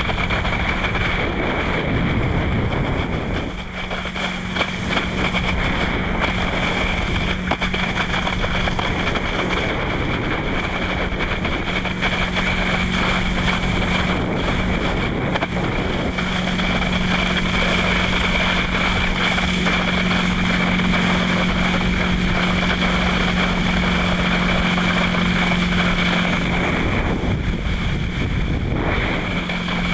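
Wind rushing over a helmet-mounted camera microphone while water skiing, under the steady drone of the tow boat's engine. The engine hum drops away briefly a few seconds in and again near the end.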